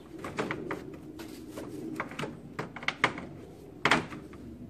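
Irregular clicks and knocks of hard plastic and metal parts being handled in a car's engine bay as the radiator cooling fan assembly is worked out. The loudest knocks come about three and four seconds in.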